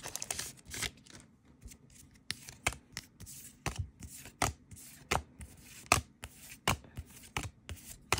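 Trading cards being flipped one at a time through a small stack, each card giving a short, sharp snap of card stock, roughly once a second.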